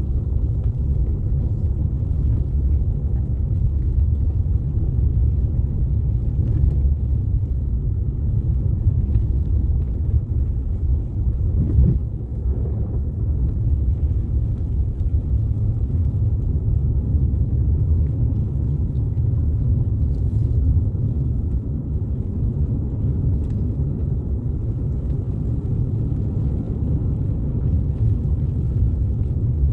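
Car driving on snowy roads: a steady low rumble of tyres and engine, with a brief change in the rumble about twelve seconds in.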